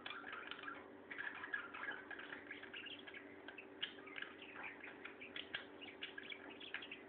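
Small pet parrots chattering in quick, short chirps that run on without a break, over a steady low hum.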